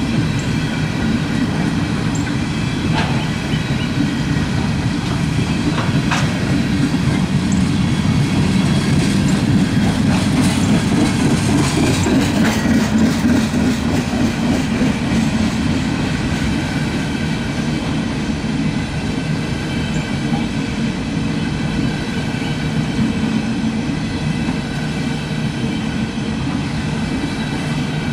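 Freight cars loaded with containers rolling past at close range: a steady rumble of steel wheels on the rails, with occasional clicks as the wheels pass over rail joints.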